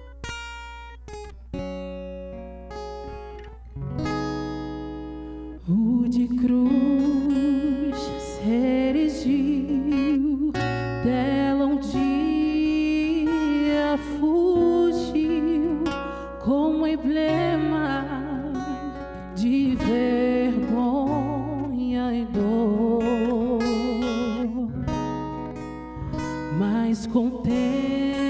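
Acoustic guitar playing chords alone, then a woman's solo singing voice comes in about six seconds in and carries a slow worship song over the guitar.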